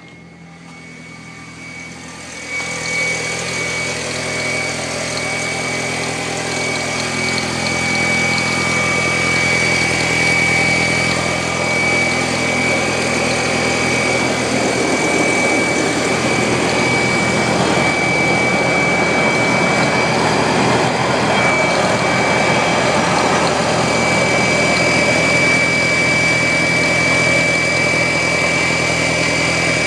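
Audi A4 B6 1.8T turbocharged four-cylinder idling just after a start from sitting all day, with a loud, high-pitched steady whine over the engine. The whole sound grows louder over the first few seconds. A new fuel filter has not cured the whine.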